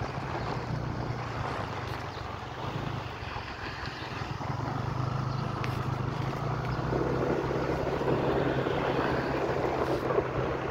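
The engine of the vehicle carrying the camera runs steadily as it travels along a street, with wind and road noise over it. The engine note grows a little stronger about halfway through.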